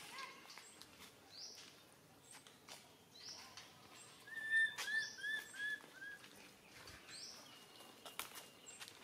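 Outdoor animal calls. A bird's short rising call repeats about every second and a half, and a louder run of five quick chirping notes comes about four and a half seconds in.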